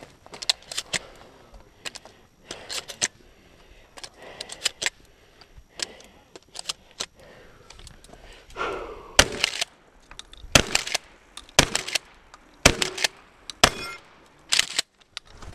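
Shotgun fired about six times, roughly a second apart, starting about nine seconds in. Before that come lighter clicks and knocks as the gun is handled and loaded.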